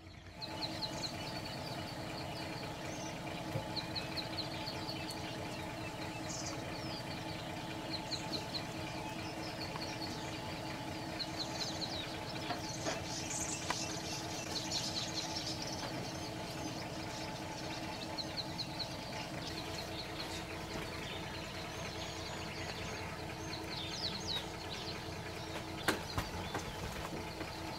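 A steady low engine hum, such as a safari vehicle idling, with small birds chirping and twittering over it. A couple of sharp knocks come near the end.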